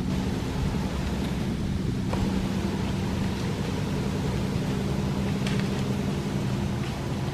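A steady low mechanical drone, several held tones under an even hiss, with a few faint ticks.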